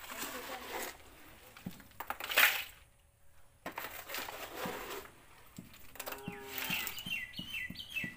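Dry grain rustling and crunching as a hand stirs it in a bamboo winnowing tray, with one loud scrape about two seconds in. A short high chirping call comes near the end.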